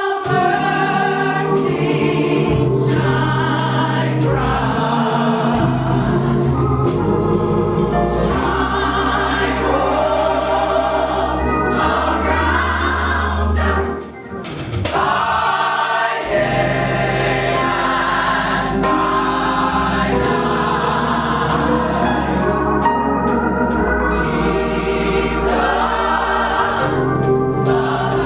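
Gospel choir singing together over instrumental accompaniment with sustained low bass notes. The music briefly dips about halfway through, then carries on.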